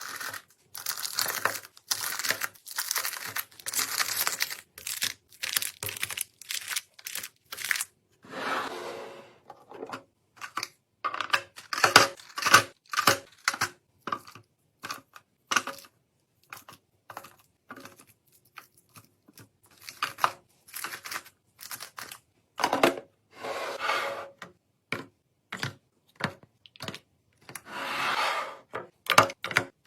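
Food packaging and containers being handled while a fridge is restocked: many short clicks, taps and rustles with dead silence between them. Three longer stretches of crinkling or tearing come about eight seconds in, past twenty seconds and near the end.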